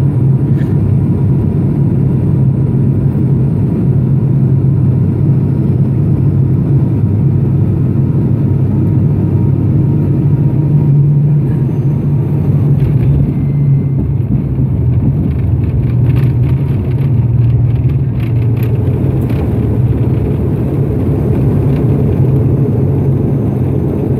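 Steady low drone of the ATR 72-500's Pratt & Whitney PW127 turboprop engines and six-bladed propellers, heard from inside the cabin, as the aircraft lands and rolls out along the runway.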